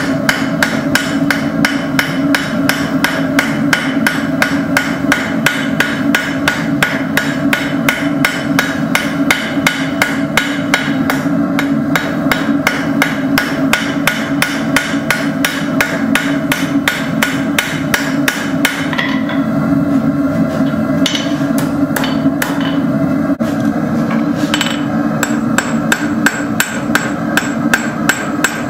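Hand hammer striking hot steel rod on an anvil in a steady run of quick blows, about three a second, forging a small leaf keychain. The blows thin out to a few scattered strikes about two-thirds through, then pick up again, over a steady hum.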